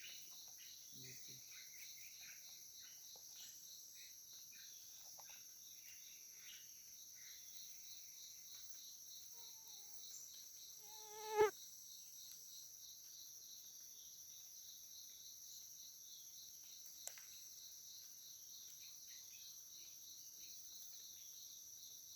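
Steady chorus of forest insects, crickets and cicadas, a high-pitched shrill drone with a fast pulse in it. About halfway through, one loud short sound swells and rises in pitch, then cuts off sharply.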